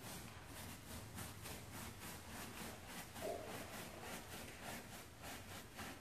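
Hand scrubbing brush rubbing over wet plush fabric in quick, even back-and-forth strokes, about four or five a second.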